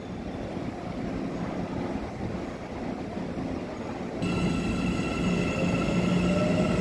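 Low noisy rumble with wind, then from about four seconds in a red CPTM electric commuter train: a steady low hum with several high electrical whines, and a motor whine that rises slowly in pitch as the train gets moving.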